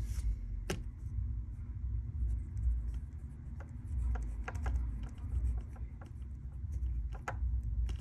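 Handwriting: short, faint scratching strokes of a pen or marker at irregular intervals, over a steady low hum.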